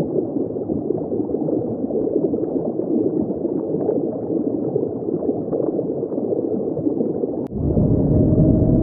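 Dense bubbling and gurgling of water, like a vigorous boil. About seven and a half seconds in, it cuts to a louder, deeper rumbling with a low steady tone.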